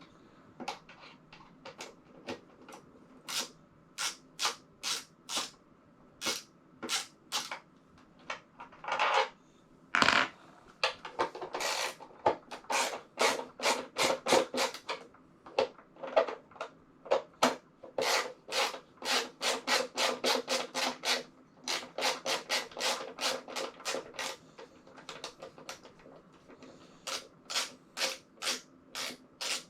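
Repeated short rasping strokes from a hand tool worked back and forth, about two to three a second, in runs with short pauses, busiest in the middle.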